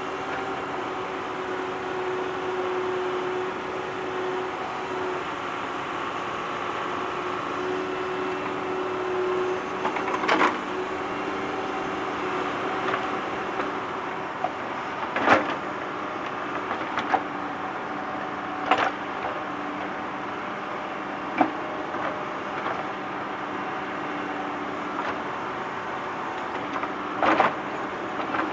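Digging tractor's diesel engine running steadily under load, with several sharp metallic clanks from the digging work, the loudest about fifteen seconds in.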